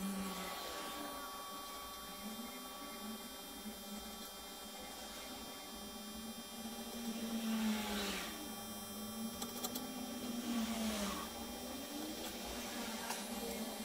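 A steady low hum that slowly wavers in pitch, with a few faint metallic clicks as steel hex nuts are spun by hand along a bolt held in a vise.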